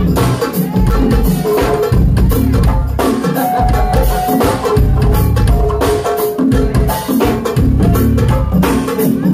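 Live band music with a heavy bass line and a drum beat, played loud.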